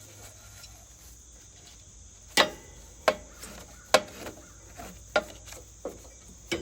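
Sharp knocks and clatter of debris being cleaned out of a riding mower's battery compartment: nothing for about two seconds, then three loud knocks less than a second apart and several lighter ones. Crickets chirp steadily in the background.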